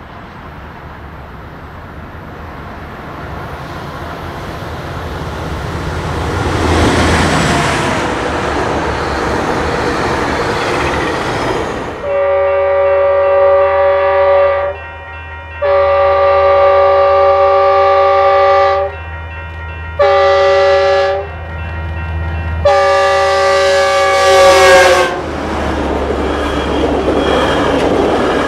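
Rumble of an approaching commuter train building up, then a Metrolink diesel locomotive's multi-note air horn sounding the grade-crossing signal: two long blasts, a short one and a final long one.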